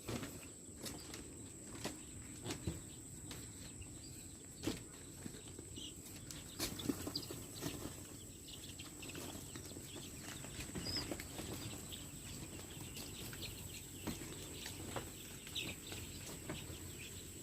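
A flock of young layer chicks in a brooding pen: faint scattered peeping and rustling, with occasional light clicks and knocks.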